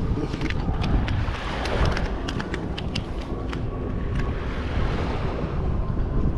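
Wind buffeting the microphone in a strong low rumble, with water and surf behind it and scattered light clicks through the first few seconds.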